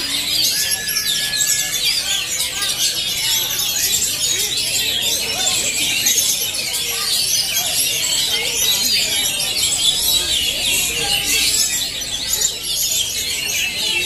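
A dense chorus of many caged oriental magpie-robins (kacer) singing against one another at once: overlapping quick whistles and chirps that never pause.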